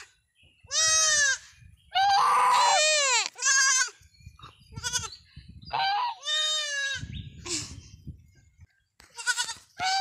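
Baby goats bleating over and over: high-pitched calls that rise and fall, about eight in all, with two kids calling over each other about two seconds in.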